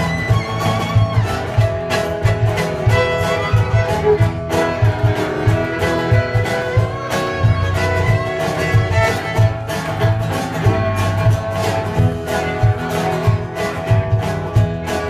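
Bluegrass music: a fiddle playing melody over a plucked, strummed guitar, with a steady pulsing bass beat.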